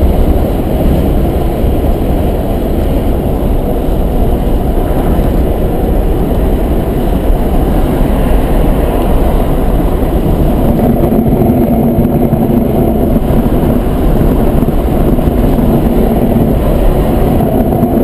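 Steady road and engine noise of a car cruising on a highway, heard from inside the cabin. From about ten seconds in, a low steady hum joins it.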